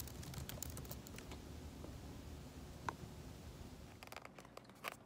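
Scattered light clicks and taps, sparse and irregular, over a low steady room hum. The hum drops away about four seconds in, where a few more clicks follow.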